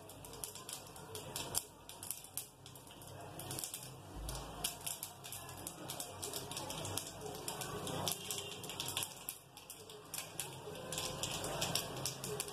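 Mustard seeds and urad dal spluttering in hot oil in an aluminium kadai: a dense, irregular crackle of small pops, thickest near the start, in the middle and near the end.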